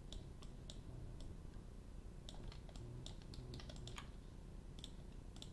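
Faint, irregular clicking of a computer keyboard and mouse: a dozen or so scattered clicks, some close together in pairs.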